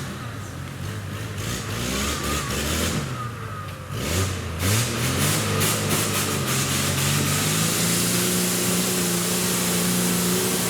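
Off-road Toyota Land Cruiser's engine revving hard: the revs climb about four seconds in and stay held high, with a steady rushing noise over it.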